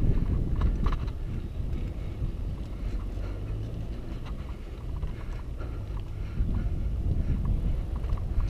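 Wind rumbling on an action camera's microphone during a bicycle ride, with faint scattered clicks and rattles from the bike.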